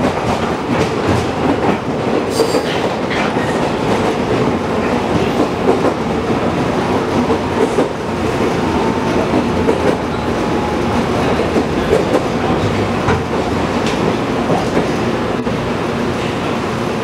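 JR Kyushu 415 series 500-subseries electric train running, heard from inside a passenger car: steady running noise of wheels and motors, with the wheels clacking over rail joints every second or two.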